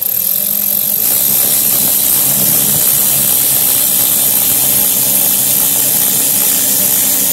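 Power drill running steadily for about seven seconds, driving a screw through the bracket into the slide-out's plastic gear rack. It starts abruptly and cuts off near the end.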